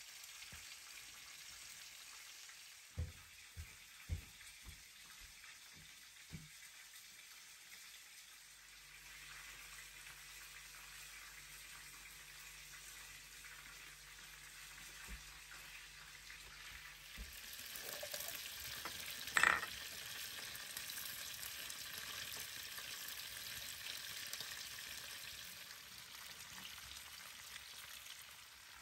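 A faint steady hiss with a few small clicks in the first quarter. About two-thirds of the way in, the hiss grows louder and brighter, with one short louder noise soon after.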